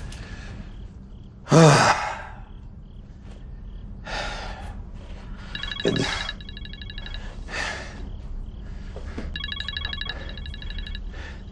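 A telephone ringing twice with a rapid electronic trill, each ring about a second and a half long; it is the call that gets answered. About a second and a half in there is a short, loud vocal sound.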